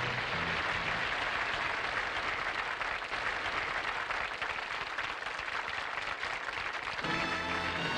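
Studio audience applauding steadily. Music fades out at the start and comes back in about seven seconds in.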